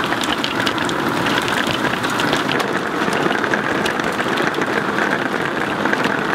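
Hail pelting down with heavy rain: a dense, steady patter crowded with sharp ticks of individual hailstones striking. The stones are large, about quarter-sized.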